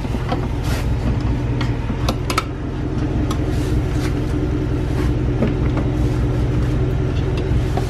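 A vehicle engine idling with a steady low hum, under scattered light clicks and scrapes as a long-reach lockout rod is worked through a car door wedged open at the frame.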